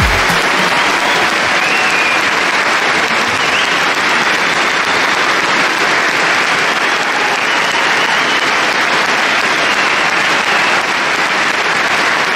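Large arena crowd applauding steadily, greeting the end of a won badminton match.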